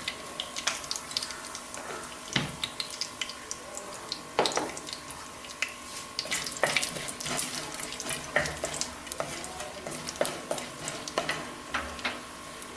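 Cumin seeds, peppercorns and cashew nuts frying in hot oil in a clay pot: a steady sizzle with frequent small irregular crackles and pops. A wooden spatula stirs them near the end.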